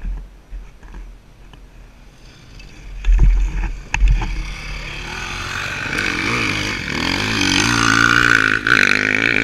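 A racing dirt bike's engine approaching and passing close by, revving with a wavering pitch, growing louder from about five seconds in and loudest near the end. A few low thuds of wind or handling on the microphone come before it.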